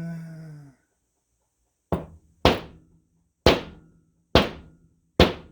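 Five sharp hammer taps, roughly one a second, driving a metal ferrule down onto a screwdriver handle. Each blow rings briefly.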